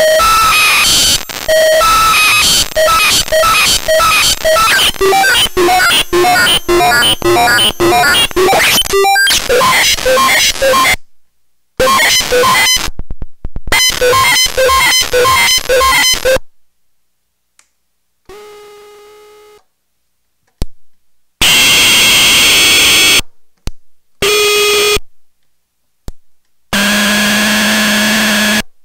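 Homemade circuit-bent noise sequencer synthesizer playing a fast, harsh, buzzy stepped sequence of noisy chiptune tones, about two steps a second, the pitch mostly stepping downward. After about 16 seconds the sequence stops, and separate bursts of loud harsh noise and held buzzy tones are triggered, with silent gaps between them.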